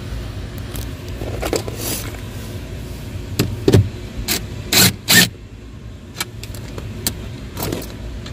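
Cordless drill/driver with a socket spinning a 10 mm nut down onto a ground stud in short bursts, with small clicks and taps of metal parts. The two sharpest bursts come about five seconds in, over a low steady hum.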